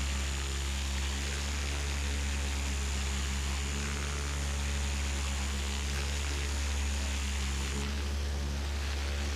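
Steady electric motor hum with a deep drone and a row of even overtones, unchanging throughout.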